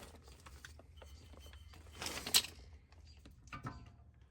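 Rear brake pads being worked out of the caliper bracket: metal scraping and clicking, with a louder scrape about two seconds in and a few metallic clinks near the end.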